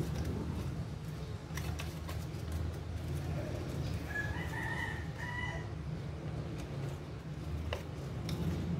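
Origami paper crinkling faintly as it is folded, with a few soft clicks, over a steady low hum. About four seconds in, a drawn-out bird call lasts about a second and a half, rising and then holding.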